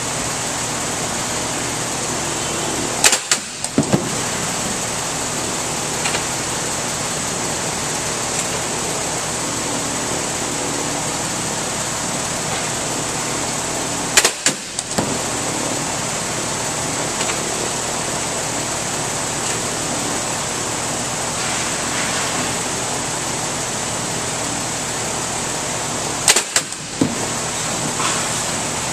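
Drop tester releasing a honeycomb-partitioned three-bottle wine carton onto its impact base, three times about eleven seconds apart. Each drop is a sharp bang followed by one or two quick smaller hits, all over a steady background hum. It is a packaging drop test of the carton.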